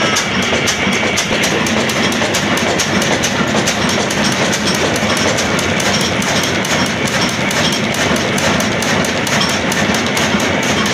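Old Ruston Hornsby-pattern single-cylinder diesel engine running steadily at speed, turning its big flywheel and flat drive belt to a flour mill, with a fast, even knocking beat.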